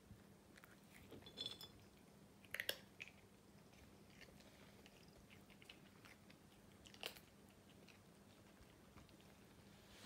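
A cat eating dry treats from a glass jar: faint crunching and a few sharp clicks, the loudest about two and a half seconds in, another near seven seconds.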